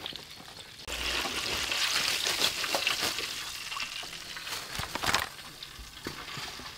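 Hot cooking oil in a wok sizzling and crackling while a wire strainer of fried chicken wings is lifted out and drained over it, with a few sharp knocks about five seconds in as the wings are tipped out.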